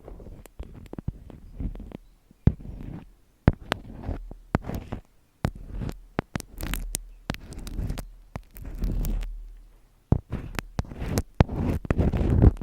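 Close-miked ASMR handling sounds: irregular sharp taps and clicks mixed with low rubbing and rustling.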